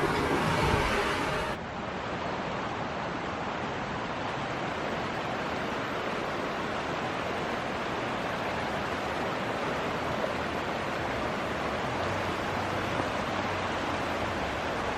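Mountain creek water rushing steadily over rocks. Its level drops slightly and its tone changes about a second and a half in, then it holds steady.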